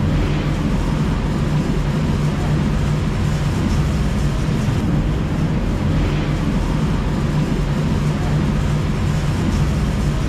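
A steady, loud, low machine drone with a constant hum that does not change.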